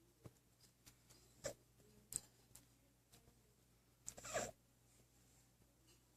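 Sleeping domestic cat snoring: quiet wheezy breaths with a wavering, whine-like pitch, a faint one about a second and a half in and a louder one about four seconds in.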